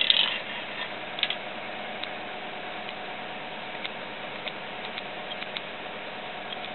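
Light metallic clicks and scrapes from handling an inside micrometer seated in the machined cast-iron bearing seat: a cluster at the start, another about a second in, then a few faint scattered ticks. Under them runs a steady background hum with a faint steady tone.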